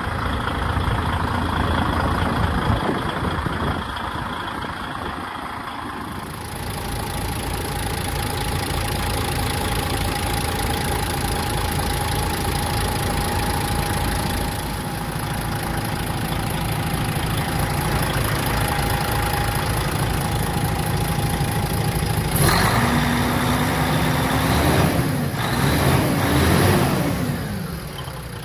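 DAF CF85 truck's PACCAR MX straight-six diesel running at idle under the tilted cab, revved up and back down a couple of times near the end.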